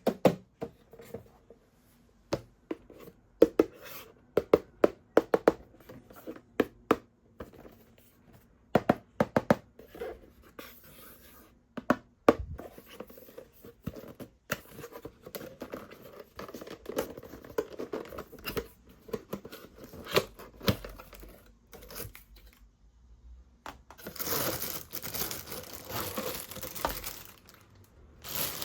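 Hands handling packaging: plastic or paper crinkling and tearing, with many sharp clicks and taps in the first part and a louder stretch of crinkling near the end.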